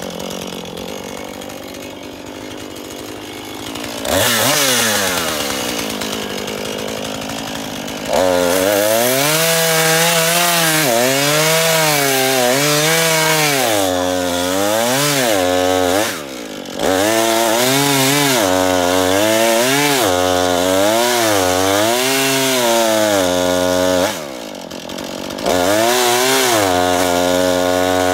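Two-stroke chainsaw idling at first, then run at full throttle cutting through a thick log, the engine pitch dipping and rising again and again as the chain loads in the wood. The throttle eases off briefly twice, in the second half.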